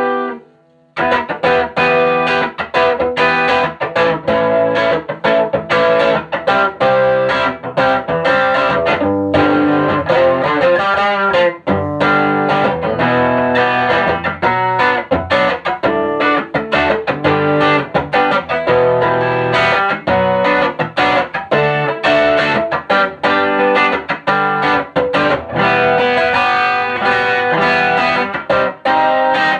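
Stratocaster electric guitar played through a 1965 WEM Control ER15 valve PA head, with its push-pull EL84 output and ECC83 preamp valves, its gain turned up for a lightly overdriven tone. After a brief note at the start, a busy stretch of picked notes and chords begins about a second in and runs on without a break.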